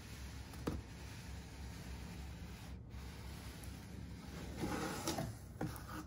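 Cardboard sliding and scraping as a robot vacuum's retail box is drawn up out of its corrugated shipping carton, faint throughout, with a short tap less than a second in and a louder scrape near the end.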